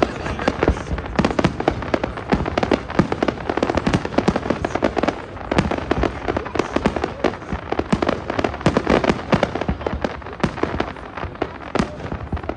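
Fireworks display: a dense, continuous barrage of rapid bangs and crackles from aerial shells going off in quick succession.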